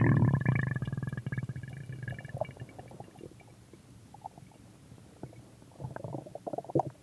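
Stomach growling: a loud, pitched growl fades out over the first second or so, leaving faint gurgles and clicks, with a little more gurgling shortly before the end.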